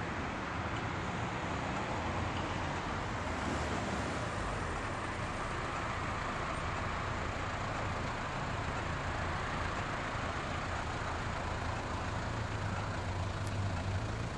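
Road traffic on a city street: a steady hum of passing cars with a low engine rumble, which grows a little louder near the end as a vehicle comes closer.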